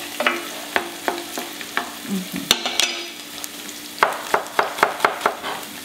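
Onions frying and sizzling in a pan, stirred with a utensil that clicks and scrapes against the pan. A quick run of knocks starts about four seconds in.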